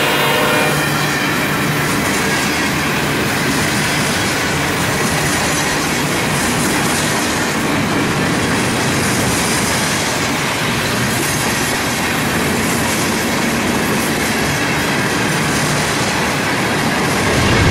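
Freight train running by, a steady dense rumble with clickety-clack of wheels and some wheel squeal. A horn blast carrying over from before ends about a second in.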